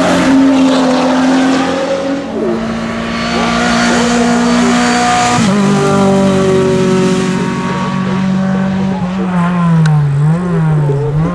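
A racing car's engine running hard at high revs. Its pitch steps down sharply about five and a half seconds in, then sinks and wavers up and down near the end as the revs come off.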